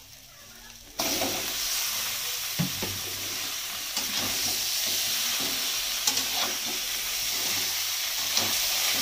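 Raw mutton pieces hitting hot oil and browned onions in an iron kadhai: a loud sizzle that starts suddenly about a second in and keeps going, with a few clicks and scrapes from the spatula stirring the meat.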